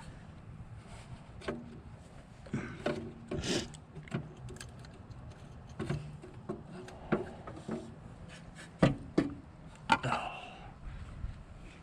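Irregular clicks, knocks and scraping of hand tools and metal parts being worked in a car's engine bay, with a few sharper knocks near the end.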